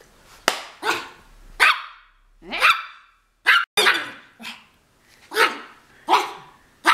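Yorkshire terrier barking repeatedly: about nine short, sharp, high barks at uneven intervals.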